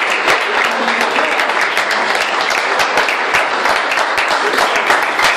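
A small group of people clapping steadily.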